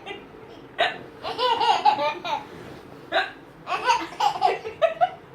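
Hiccups, two sharp ones about a second in and about three seconds in, each followed by a burst of high-pitched laughter.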